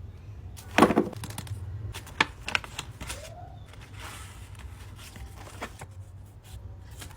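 Handling noises from a bag and its packaging: a loud rustle about a second in, then a scattering of sharp clicks and taps, over a steady low hum.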